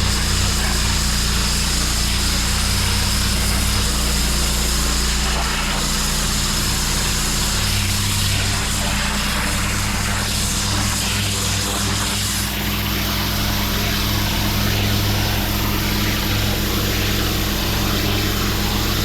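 Engine-driven pressure washer running steadily, its high-pressure water jet hissing onto block paving; the hiss changes slightly about two-thirds of the way through.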